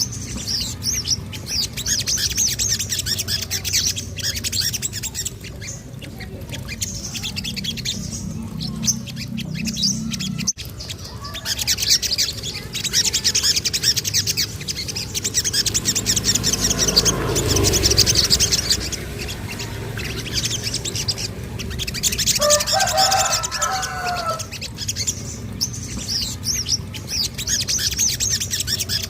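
Little spiderhunter (sogon) singing: rapid, high-pitched chattering trills in repeated bursts. A lower call comes about three quarters of the way through.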